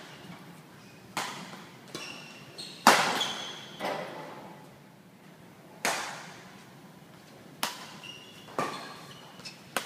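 Badminton rally: sharp racket strikes on a shuttlecock, about one a second and echoing in the hall, the loudest about three seconds in. Short high squeaks of shoes on the court mat come between the hits.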